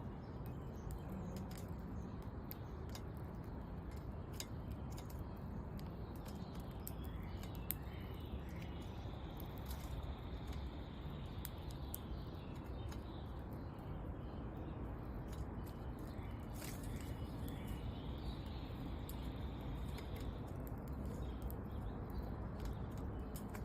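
Small birds at a feeder chirping faintly, with many scattered sharp clicks over a steady background hiss.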